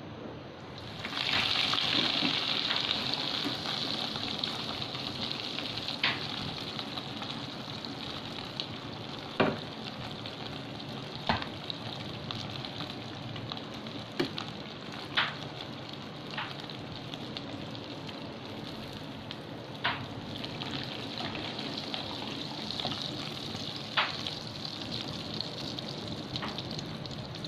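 A bread patty frying in hot oil in a pan. The sizzle jumps up loudly about a second in as the patty goes into the oil, then settles into a steady sizzle with occasional sharp pops and crackles.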